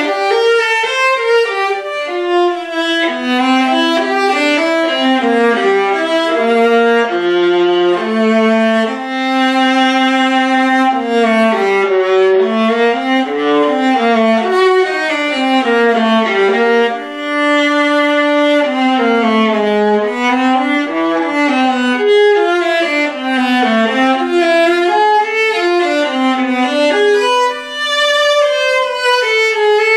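Solo viola played with the bow, unaccompanied: a melody of held and moving notes with vibrato.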